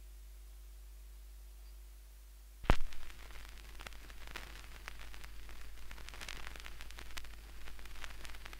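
Turntable stylus set down on a vinyl record with a sharp click about two and a half seconds in, then the crackle and scattered pops of the lead-in groove as the record spins. A low mains hum sits underneath.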